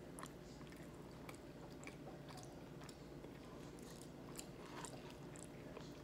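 Faint chewing of a fried buffalo chicken wing, with scattered small wet clicks.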